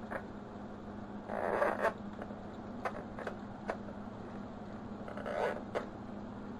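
Mechanic's retriever tool scraping and clicking as it is worked into a clogged vacuum cleaner: two longer scrapes, about a second in and near the end, and several sharp clicks in between, over a faint steady hum.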